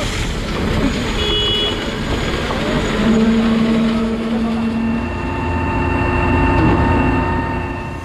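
Sany 43-metre truck-mounted concrete pump running during a pour: a steady machinery noise with a few held whining tones in the second half.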